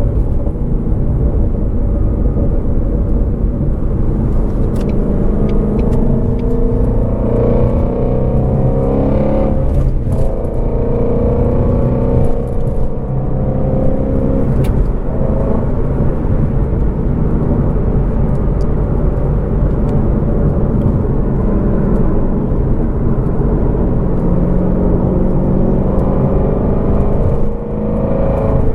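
A Shelby GT350R's 5.2-litre flat-plane-crank V8 running under way; its pitch climbs for a few seconds and drops about ten seconds in, as on a gear change. A few sharp crackles and pops come from the exhaust.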